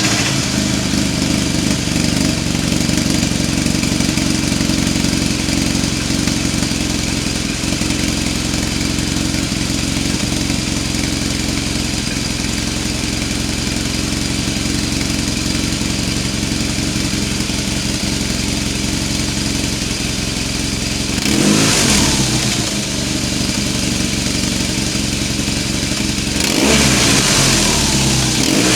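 BMW R1200 GS Adventure's flat-twin boxer engine, breathing through a freshly fitted GRmoto slip-on exhaust with the baffle in, idling steadily just after its first start-up. The throttle is blipped twice, about 21 seconds in and again near the end.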